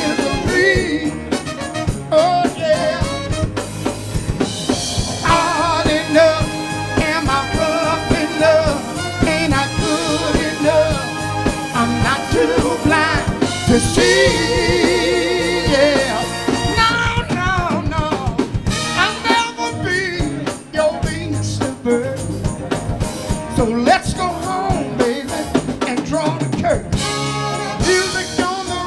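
Live band performing a song: a lead singer with backing singers over drum kit and bass guitar. Midway through, a voice holds a long note with vibrato.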